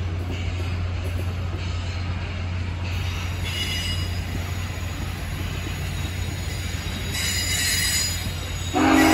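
Union Pacific passenger cars rolling past close by: a steady low rumble of steel wheels on rail with intermittent high wheel squeal. Just before the end a loud, steady pitched tone starts abruptly.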